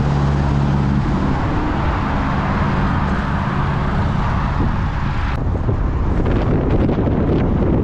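Wind rushing over the microphone of a handheld camera on a moving bicycle, with a motor vehicle's engine humming steadily through the first two or three seconds. The noise changes abruptly just past five seconds in.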